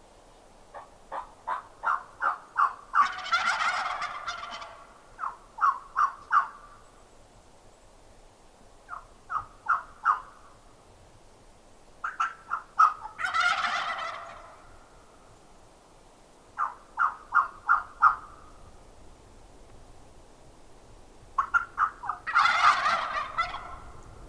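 Merriam's wild turkey gobbling three times, each rattling gobble led by a quickening run of sharp yelping notes, with more short runs of yelps in between.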